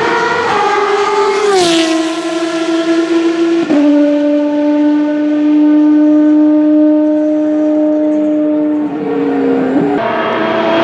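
Race car engine running at high revs. Its note glides down about a second and a half in as the car passes, then steps down near four seconds. It then holds a steady high note before changing again near the end.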